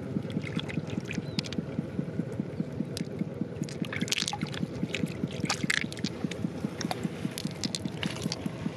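Water trickling and splashing as wet hands scoop and pour shallow water, with brief splashes about four and five and a half seconds in. Under it runs a steady low, rapid pulsing, like a small motor.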